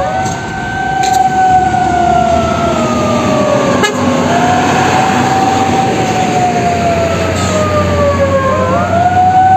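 Vehicle siren wailing: its pitch falls slowly and then sweeps quickly back up, about every four and a half seconds, over the low running of bus engines.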